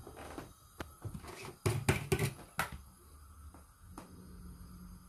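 Kitchen handling noise: a quick run of sharp clicks and knocks in the first half, then a faint steady low hum.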